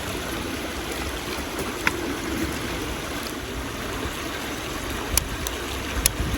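Steady rushing noise, like running water, with a few sharp snaps near the end as the kindling in the fire pit catches and begins to crackle.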